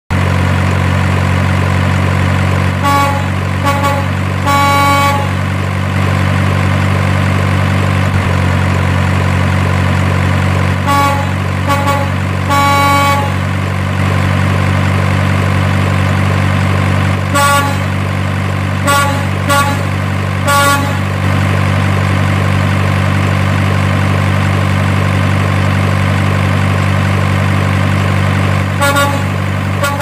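A large truck's engine running steadily, with short horn toots in clusters of two to four every several seconds.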